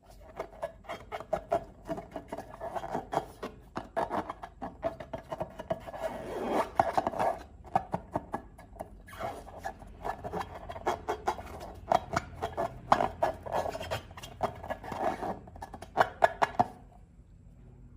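Slime being worked by hand: a dense, irregular run of rubbing and scraping with many short sticky clicks, which stops near the end.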